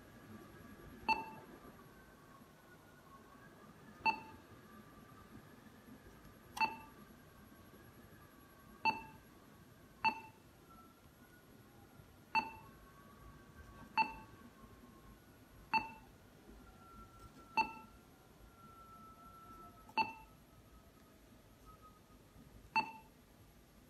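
Android car head unit's touchscreen key beep, a short ringing blip sounding eleven times at uneven intervals as menu items are tapped.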